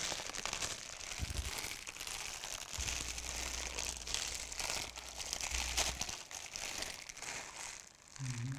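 Plastic packaging crinkling and rustling as it is handled and unwrapped, an irregular crackle throughout.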